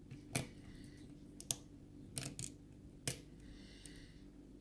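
Lock pick working the pin stack of a pin-tumbler lock under light tension: a scattering of small, sharp metallic clicks, some in quick pairs, with a faint scrape about three and a half seconds in. The picker takes the many little clicks for serrated pins in this lock.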